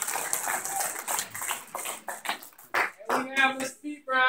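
Applause dying away to a few scattered hand claps, then a voice about three seconds in.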